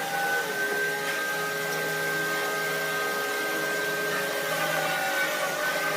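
Woodworking lathe running, a steady motor whine of several held tones over a hiss, the pitch shifting slightly a couple of times.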